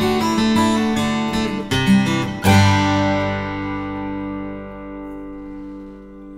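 Background music: acoustic guitar strumming, ending about two and a half seconds in on a final chord that rings out and slowly fades.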